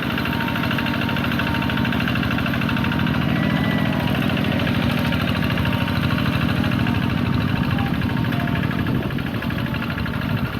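Two-wheel hand tractor's diesel engine running steadily, with a fast, even chugging beat.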